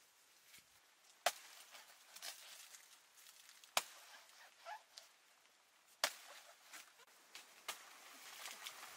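A broad-bladed knife chopping into a banana plant's trunk: three sharp blows about two and a half seconds apart, then a lighter one near the end.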